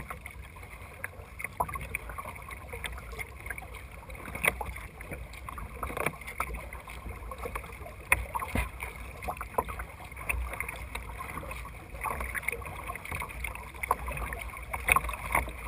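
Water slapping and splashing against the plastic hull of a kayak being paddled through light chop, in irregular small splashes, over a steady low rumble of wind on the microphone.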